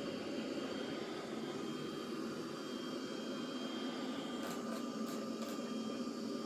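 Roborock Saros Z70 robot vacuum running: a steady whirring suction hum with a faint high whine, and a few light clicks about two thirds of the way in.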